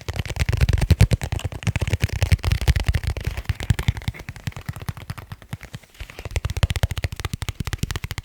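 Fast, dense tapping on leather cases, close-miked, with deep thuds under the quick taps. The deep thuds thin out for a second or two past the middle, then come back.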